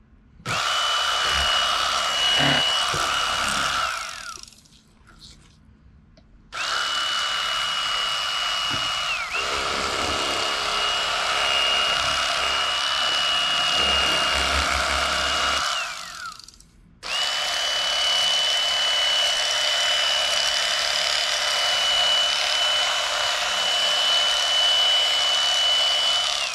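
Corded electric fillet knife running in three bursts, a short one of about three seconds and then two of about nine seconds, with a steady high motor whine that slides down in pitch as each burst winds down. The reciprocating blades are slicing a speckled trout fillet off along the backbone.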